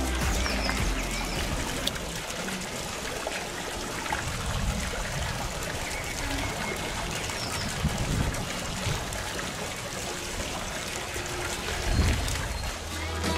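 Steady splashing and trickling of water from small fountain jets set in a lawn.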